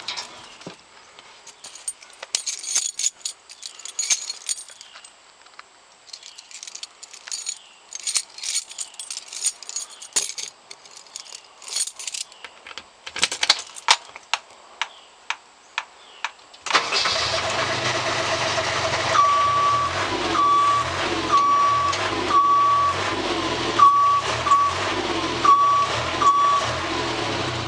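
Clicks and key jangles from the JLG 601S boom lift's ground control panel as the emergency-stop button and switches are worked. About two-thirds of the way through, the lift's diesel engine starts suddenly on a cold start and keeps running. A warning beeper on the machine sounds about once a second over the engine.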